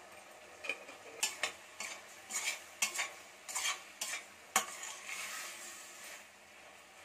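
Metal spatula stirring and scraping against a pressure cooker pot as sliced radish, tomato and sambar powder fry. There is a run of scrapes beginning about a second in, the sharpest near the middle, then a light sizzle that fades.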